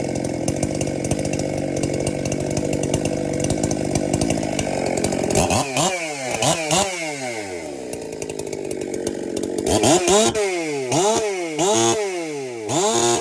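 Husqvarna 372 XP two-stroke chainsaw running steadily, then revved up and dropped back in quick throttle blips from about halfway, several in a row near the end, as its tune is being dialled in.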